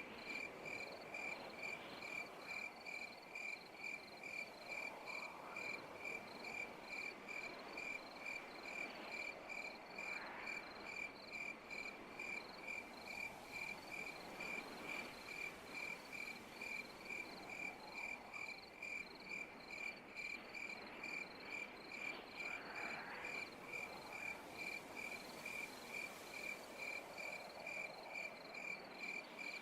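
A night insect chirping steadily, about two evenly spaced chirps a second, over fainter wavering calls in the background.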